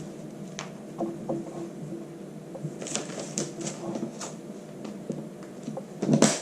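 Light clicks, taps and plastic rustling from sealed plastic bags of chopped vegetables being handled and flattened, with a louder rustle just before the end.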